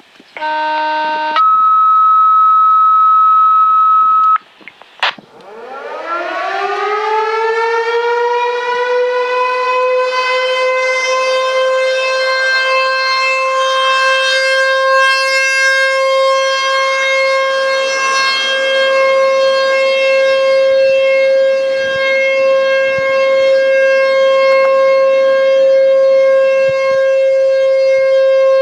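A short burst of radio alert tones, then a steady high beep for about three seconds. About five seconds in, the ASC T-128 mechanical outdoor warning siren winds up from a low growl, rising in pitch over a few seconds to a steady, loud wail that holds to the end: the steady alert signal of a monthly siren test.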